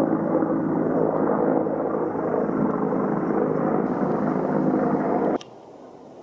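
Loud, steady mechanical drone, as of an engine or rotor, that stops abruptly a little over five seconds in.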